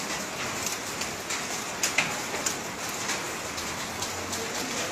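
Rain falling and pattering on surfaces: a steady hiss with scattered sharp drop impacts, the strongest about two seconds in. The drops carry volcanic ash and sand, falling as muddy rain during an ashfall.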